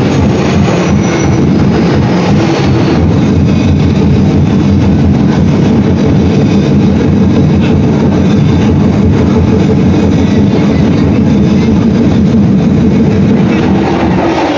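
Loud, distorted live percussion music, a dense and steady din that does not let up.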